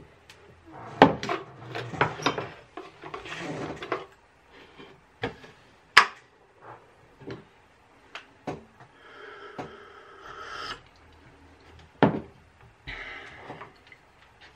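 A ceramic mug and plate being moved and set down on a wooden desk: three sharp knocks, about a second in, halfway through and near the end, with sliding and rubbing between them.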